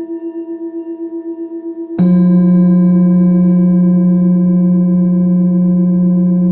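Sound-healing tones for the planetary frequencies of Mars and Jupiter: a ringing metallic tone with a wavering pulse of about five beats a second, joined about two seconds in by a louder, lower struck tone, both ringing on together.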